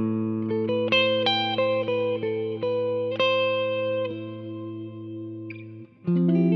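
Background music: a held guitar chord, with effects, under a slow melody of single notes. A new chord comes in about six seconds in.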